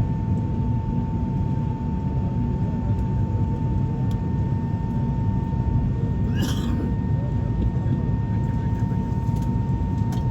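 Airliner cabin noise while taxiing after landing: a steady low engine rumble with a steady high whine throughout. A brief short sound cuts in about six and a half seconds in.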